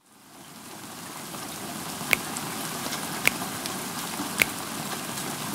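A soft rain-like hiss fades in. From about two seconds in, a single water drip sounds at an even pace, roughly once a second.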